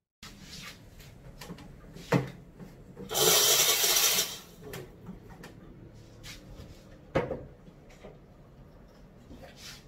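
Nuovo Simonelli Oscar espresso machine's steam wand purged: a loud hiss of steam for about a second as the steam knob is opened and shut again. A sharp knock comes shortly before it and another a few seconds after.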